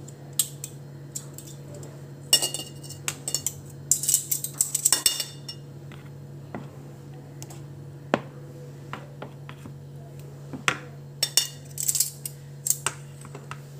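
A plastic spatula knocking and scraping against a plastic mixing bowl as banana slices are turned in thick batter. The irregular clicks and scrapes come in a busy cluster in the first half and another near the end, over a steady low hum.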